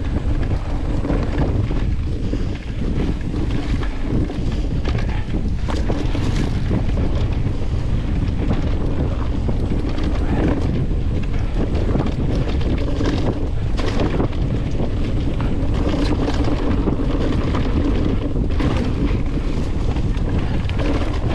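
Wind rushing over the microphone of a mountain bike rider going downhill, with steady tyre rumble on a dirt track and scattered knocks and rattles from the bike over bumps.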